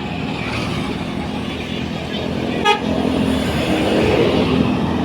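Bus engine running close by, with a bus horn sounding one steady note from a little past halfway on. A sharp click comes just before the horn.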